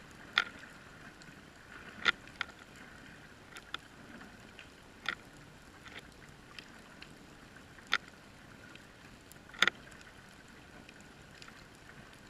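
Underwater ambience heard through a camera housing: a faint steady hum, with sharp clicks every second or two.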